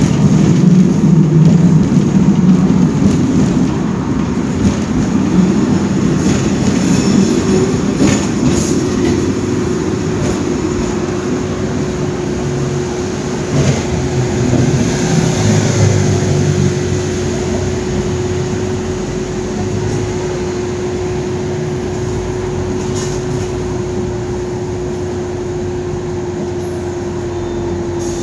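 Hong Kong double-decker electric tram running along its track, heard from on board: a low rumble that is loudest at first and then eases off. A steady whine comes in about a third of the way through and holds to the end.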